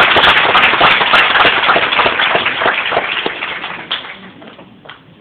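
Audience applauding: a dense spatter of hand claps that thins out and dies away about four seconds in.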